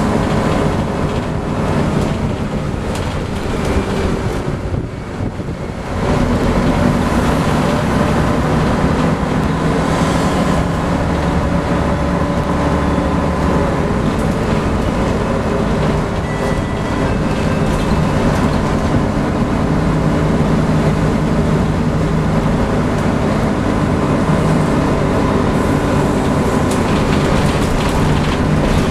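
Inside a Scania N113CRB bus under way: the diesel engine running, with the body rattling and road noise. The level dips for a couple of seconds, then the engine pulls harder again about six seconds in.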